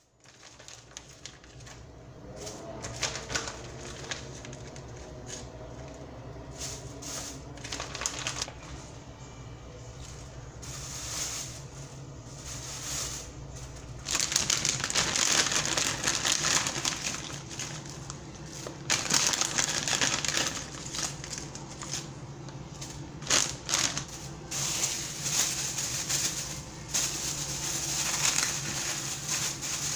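Thin plastic food bags crinkling and rustling as hands handle and pack them, soft at first and louder and more continuous from about halfway through.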